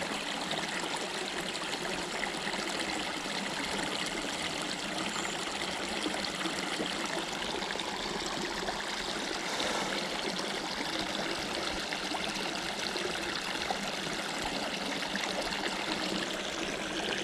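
Water of a small creek running and trickling steadily.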